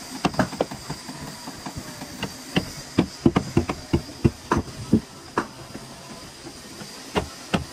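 Irregular sharp knocks and taps, at times three or four a second, thickest in the middle and thinning out for a while before picking up again near the end, over a faint steady high hiss.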